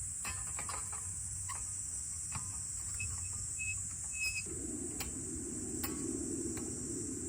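Insects buzzing steadily at a high pitch, with scattered sharp clicks and a few short high chirps. A low, even rushing noise comes in just past halfway.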